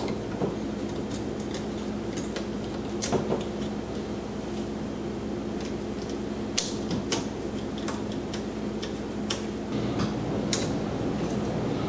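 Scattered small clicks and taps of hand work on an electrical range receptacle, with wires being fastened to its terminals, over a steady low hum.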